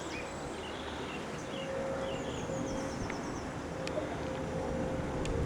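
Outdoor ambience: a low, steady rumble with a faint hum, and birds chirping now and then.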